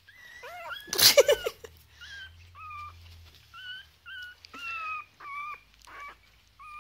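Young chihuahua puppy whimpering: a string of short, high-pitched whines every half second or so, with one louder yelp about a second in.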